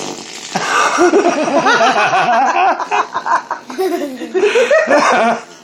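Laughter: a long run of high-pitched chuckles in quick bursts over a hissy haze, stopping a little after five seconds in.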